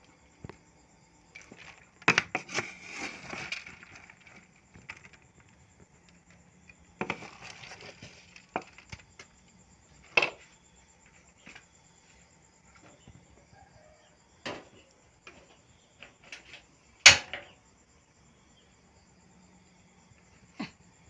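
Bowls and a wooden spoon being handled while grated coconut is scooped and scraped from one bowl into a metal bowl: scattered knocks and clatters with two short spells of scraping, the sharpest knock about three-quarters of the way through. Faint steady insect chirring runs underneath.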